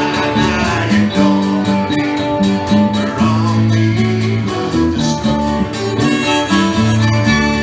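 Small live band playing a folk-country tune: strummed acoustic guitar over a moving bass line.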